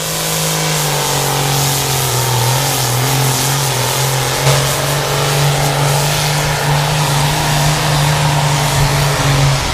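Turbocharged diesel pulling tractor at full throttle under heavy load, hauling a weight-transfer sled. The engine note is loud and steady; it steps slightly lower in pitch about two seconds in and then holds.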